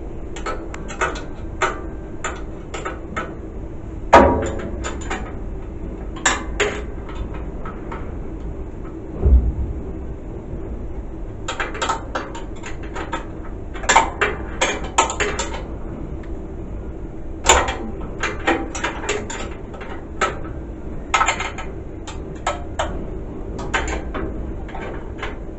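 Irregular metallic clicks and knocks from hand tools working on an air handling unit's fan motor mount and belt drive, coming in quick clusters, with a louder knock about four seconds in. A steady hum runs underneath.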